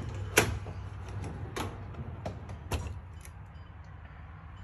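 Metal rolling toolbox drawer being handled and pulled open, with a handful of sharp clicks and knocks, the loudest about half a second in, over a steady low hum.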